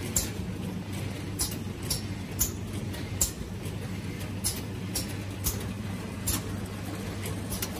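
Automatic tin-can powder filling line running: a steady low machine hum from the conveyor and filler drive, with sharp metallic clicks and knocks coming irregularly about once or twice a second as the cans pass along the conveyor and under the filling head.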